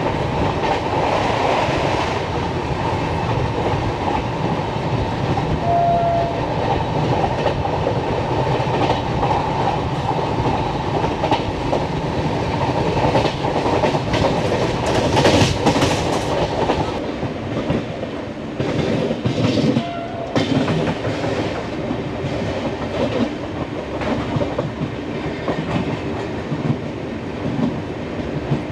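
Express passenger train running at speed, heard from a sleeper-class coach: wheels clattering over rail joints under a steady rush of noise. Two brief horn notes sound from ahead, about a fifth of the way in and again about two-thirds in.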